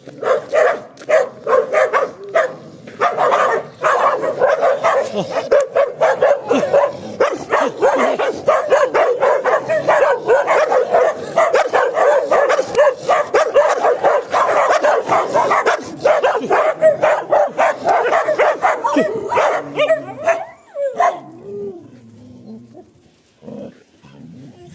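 Dog barking loudly and rapidly, the barks coming in a dense unbroken run. It stops suddenly about 20 seconds in and gives way to faint, falling whines.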